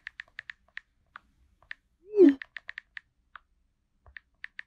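Keyboard typing clicks in quick bursts, with a short pitched message-alert tone falling in pitch about two seconds in.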